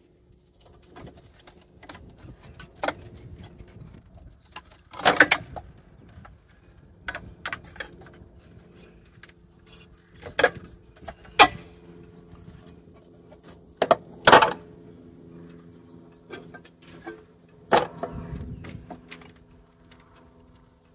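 Metal air cleaner housing being lifted off and handled on an Oldsmobile Cutlass's carburetor: scattered clanks and knocks of sheet metal, about five louder ones, with lighter clicks and rattles between.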